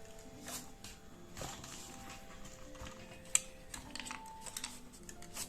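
Faint, irregular light plastic clicks and taps, with one sharper click a little past the middle: a CPU cooler's push-pin legs being pressed and checked in the motherboard's mounting holes.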